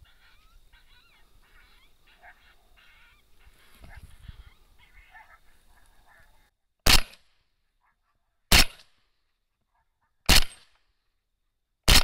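Faint broken calls, then a sudden drop to dead silence broken by four loud, sharp rifle shots about a second and a half apart, each with a short echoing tail.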